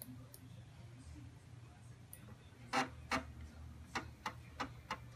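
Sharp clicks from a Commodore Amiga A1000 at work as the Shell is being opened, about six of them in the second half, coming roughly in pairs, over a steady low hum.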